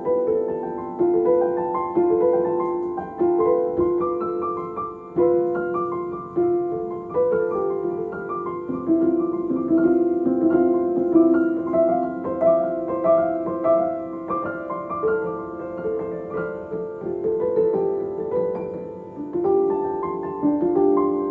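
Background piano music: a steady melody of single notes and chords that strike and fade.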